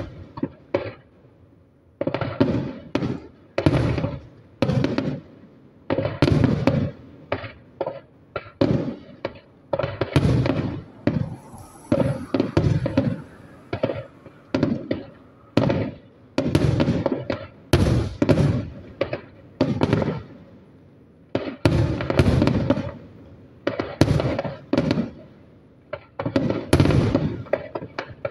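Aerial firework shells bursting in a steady barrage, about one or two booms a second, each trailing off in an echo. There is a short lull about a second in.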